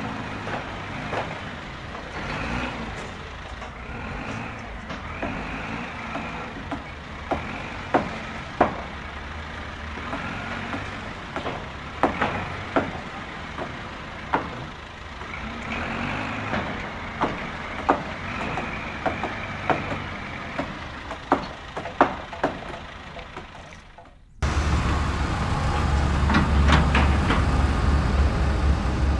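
Small electric motors of a motorized Lego Technic excavator whirring in spells that rise and fall, with plastic parts clicking and knocking many times as the arm and bucket work. About 24 s in it cuts to a louder, deep, steady rumble.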